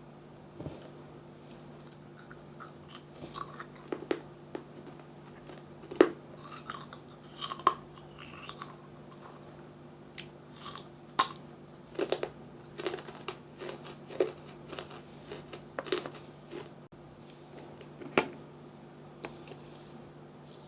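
A person biting and chewing pieces of a small fired-clay diya (oil lamp). Sharp, irregular crunches come every second or two between quieter grinding chews.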